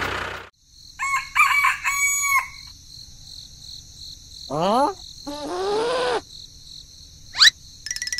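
A rooster crowing in a few broken syllables about a second in, over a steady high twittering of small birds. Later come a few calls that slide upward in pitch, one steep, one drawn out, and one quick sweep near the end.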